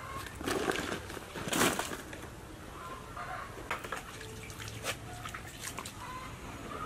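Footsteps and rustling on a dirt yard, then light splashing and hand-handling in a wok of water, with a few short bird chirps.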